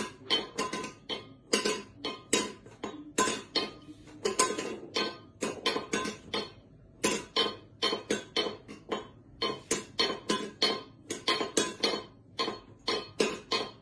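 A cat batting its small metal food bowl against a tiled floor with its paw, asking to be fed. The bowl clanks and clinks with a brief ring, in quick irregular strikes of about three a second, broken by a few short pauses.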